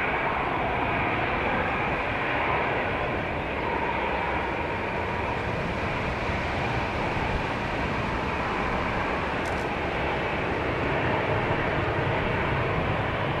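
Boeing 747-8's four GEnx-2B turbofans on final approach with gear down: a steady jet drone with a faint whine, mixed with wind buffeting the microphone.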